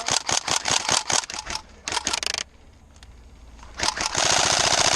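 Tokyo Marui SCAR-L airsoft electric rifle firing: a quick string of shots for about two and a half seconds, a short pause, then a rapid full-auto burst starting near the end.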